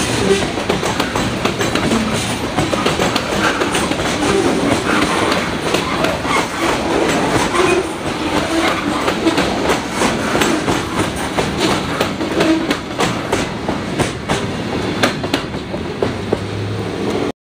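A freight train of covered hopper cars rolls past, its wheels clicking and clattering over the rail joints in a steady run of sharp clicks. The sound cuts off abruptly near the end.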